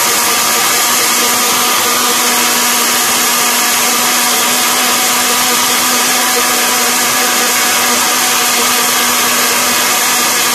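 Electric countertop blender running steadily, a loud even rush with a constant motor hum, as it blends milk and sugar into a froth.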